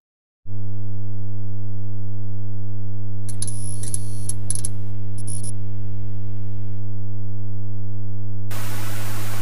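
A loud, steady, low electrical hum starts suddenly about half a second in. A stretch of sharp mechanical clicking and rattling runs over it in the middle, and a hiss of rushing noise joins near the end.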